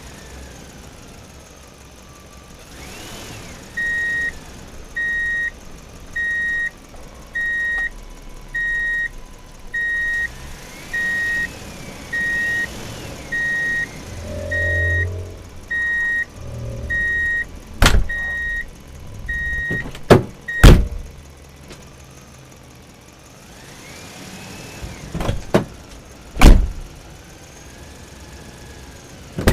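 Toy construction truck's electronic reversing alarm beeping, a high beep about once a second for some thirteen seconds. Several sharp knocks of hard toys being bumped follow in the second half.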